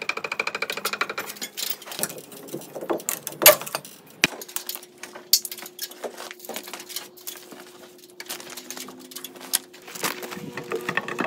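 Scattered knocks, clicks and clinks of hand tools and lumber being worked at a framing job, starting with a quick metallic rattle as a pry bar works at a nailed sill board. A faint steady hum runs underneath from about four seconds in.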